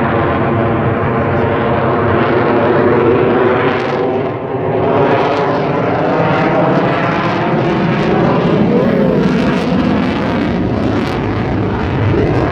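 Lockheed Martin F-35 fighter jet's single afterburning turbofan engine, loud and steady as the jet flies its display close by, with a brief dip about four seconds in.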